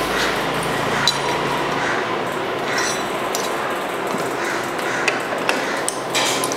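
A handful of light metallic clicks and taps from hand tools working on a motorcycle's handlebar brake lever assembly, over a steady background hiss.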